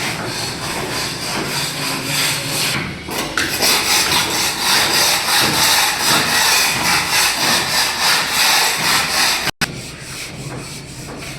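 Rapid, rhythmic scraping strokes of a hand tool on a concrete floor as the surface is chipped and cleaned for tiling. The scraping grows louder a few seconds in and breaks off abruptly near the end, after which a quieter rasping continues.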